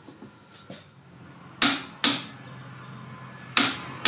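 Click-type torque wrench clicking as it reaches its set torque of about 40 ft-lb on the intermediate steering shaft bolt: two pairs of sharp metallic clicks, the first pair about a second and a half in, the second near the end.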